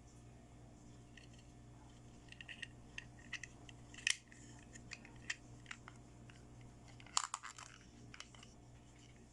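Unboxing a toy set by hand: scattered light clicks, taps and rustles of small pieces and packaging being handled, with louder clatters about four seconds in and again near seven seconds, over a low steady hum.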